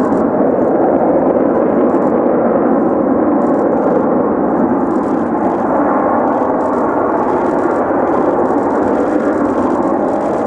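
Lockheed Martin F-35B's F135 jet engine and shaft-driven lift fan in vertical-flight mode, hovering: a loud, steady jet roar.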